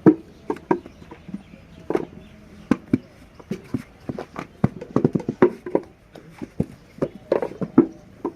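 Handmade brick-making: an irregular run of dull thumps and slaps of soft wet clay and wooden moulds, at times several a second.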